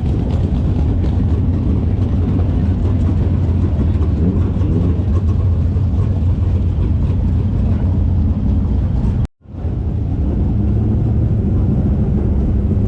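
410 sprint cars' V8 engines running, a loud, steady engine sound. It drops out for a moment about nine seconds in, then resumes.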